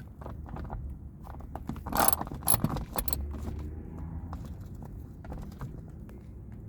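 Metal clinks and rattles of a 10 mm socket wrench and loose bolts being handled while bolts are undone, with a louder clatter about two seconds in.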